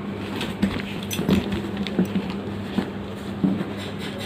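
Nylon webbing and the metal buckle of an endless ratchet strap being handled and pulled snug: irregular light clicks and knocks over a steady low hum.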